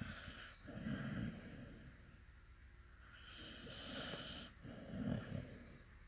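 An American bulldog snoring in its sleep: a low, rough snore about a second in and another about five seconds in, with a long hissing breath between them.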